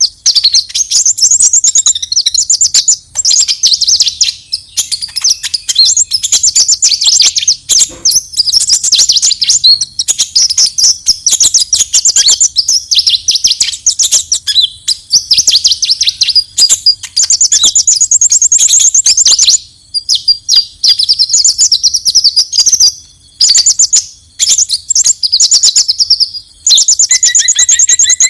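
Purple-throated sunbird (kolibri ninja) giving its aggressive fighting call: loud, rapid, high-pitched chittering trills, nearly continuous with a few brief pauses.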